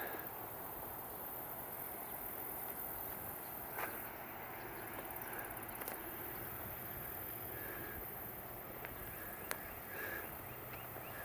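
Outdoor natural ambience: a steady hiss with short high chirps repeating every second or two, and a few sharp clicks.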